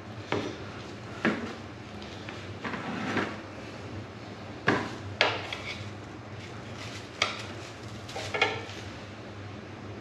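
Steel tire irons clinking and knocking against each other and the wheel rim as a dirt bike tire's bead is levered over the rim in small bites: about seven sharp, unevenly spaced clicks.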